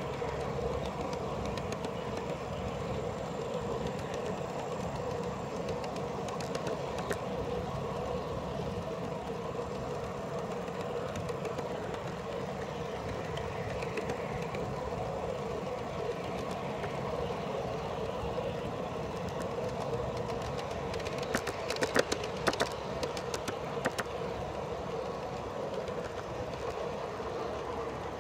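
Steady running noise of a small-scale backyard railway train's steel wheels rolling on the rails, heard from aboard one of its cars, with a steady ringing tone over the rumble. A cluster of sharp clicks and clatter comes about three quarters of the way through.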